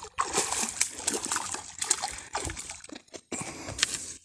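Hooked oscar thrashing at the water's surface on a fishing line, making irregular splashes and sloshes as it is pulled in, with a brief pause about three seconds in.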